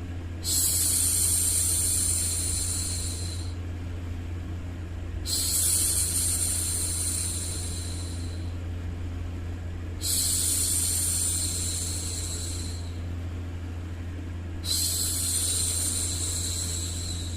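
A woman's voice making long, drawn-out 'shhh' hushing sounds to soothe a baby: four shushes, each about three seconds long, repeating roughly every five seconds. A steady low hum runs underneath.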